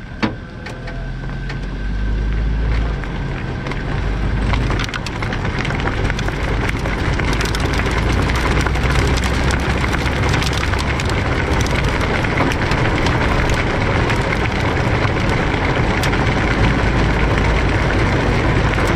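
Small open-cockpit sports racing car being towed with its broken engine silent: tyre and road noise with dense rattling and clicking, and wind buffeting the microphone. It gets louder over the first few seconds as the tow picks up speed.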